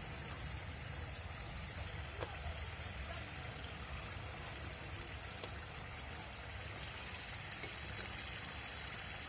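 Masala gravy simmering in an aluminium pot, a steady bubbling hiss.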